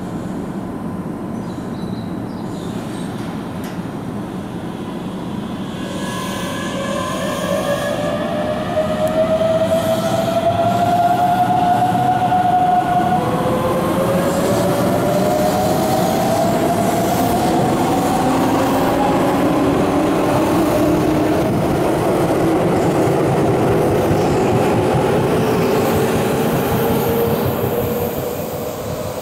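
Keihan 7200-series electric train pulling away: after a few seconds of steady low hum, the VVVF inverter traction motors start a whine about six seconds in that climbs in pitch in several stepped glides as the train accelerates, over the running noise of the wheels on the rails.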